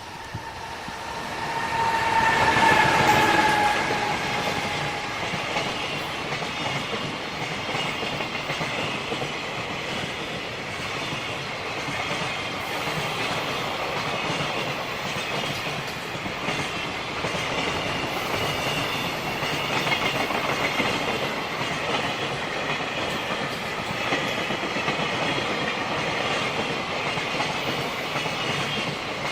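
JR Freight train passing at speed. It gets louder to a peak about two to three seconds in, where a tone dips slightly in pitch. Then comes a long steady rolling rumble with the clickety-clack of the freight wagons' wheels over the rail joints.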